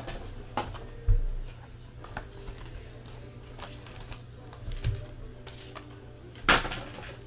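A box of 2011 Topps Inception football cards and its pack being handled: scattered taps and knocks, a dull thump about a second in and a louder rustling scrape near the end. Faint background music and a steady low hum run underneath.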